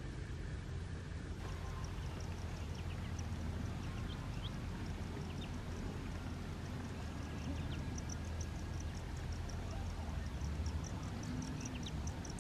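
Muscovy ducklings peeping now and then while foraging, over a steady low rumble. A faint, fast, high chirping runs behind them, stronger in the second half.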